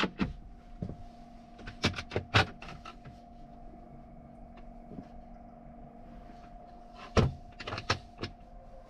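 Several sharp knocks and clatters as a camper van's hinged aluminium bed frame with wooden slats and the storage compartment beneath are lifted and handled, a cluster about two seconds in and another near the end. A steady low hum runs underneath.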